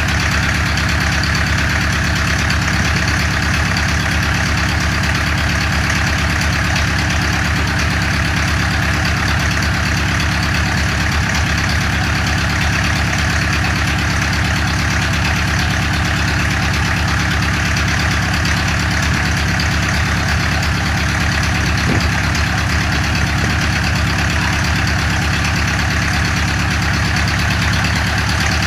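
Engine of a home-built helicopter running steadily at a constant low speed, with an even, rapid firing pulse.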